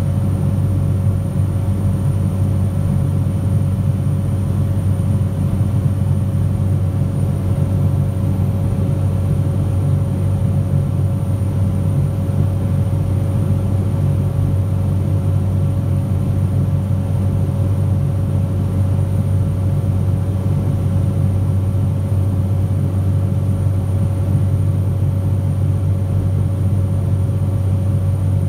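Steady drone of a light aircraft's engine and propeller heard from inside the cabin in cruise, a deep even hum with a fainter steady tone above it.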